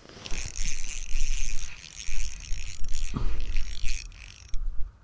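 Fishing reel cranked quickly with a fine rattling whir, retrieving line with a hooked white bass on it. A low rumble runs underneath.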